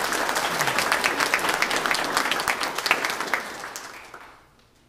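Congregation applauding, many hands clapping at once, fading out near the end.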